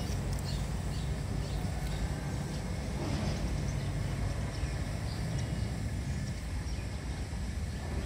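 Outdoor background ambience: a steady low rumble, with a few faint, short high ticks or chirps scattered through it.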